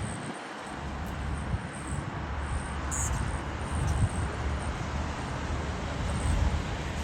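Strong wind buffeting the microphone: a gusty low rumble that swells and dips, over a steady rushing noise.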